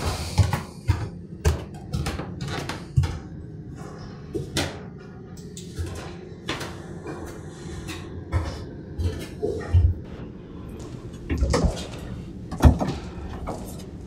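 Footsteps going down bare wooden stairs: a dozen or so irregular thuds and knocks on the treads, with the loudest knock about three-quarters of the way through.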